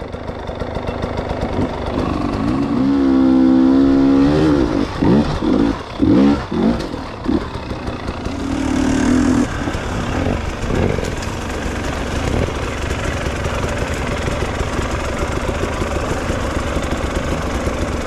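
Enduro dirt bike engines revving on a trail. A rising, held rev comes about three seconds in, then several quick throttle blips, then the engines run steadily at low speed.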